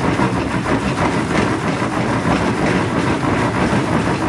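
A OneDerBrew plastic fermenter full of wort, pressurized with its hand pump, being shaken hard back and forth: a steady churning slosh and rattle of liquid and vessel. The shaking under pressure drives oxygen into the wort before fermentation.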